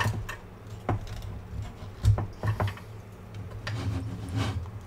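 Scattered light clicks and taps of fingers handling a small plastic model compartment, over a low steady hum.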